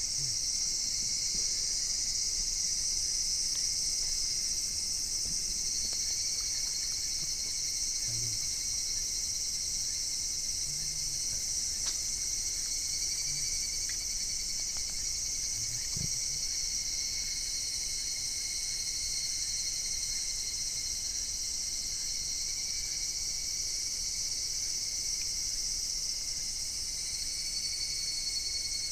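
A steady, high-pitched insect chorus chirring without a break.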